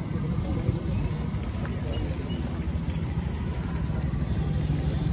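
Motorcycle engines running at low speed close by, a steady low rumble, over faint chatter from a walking crowd.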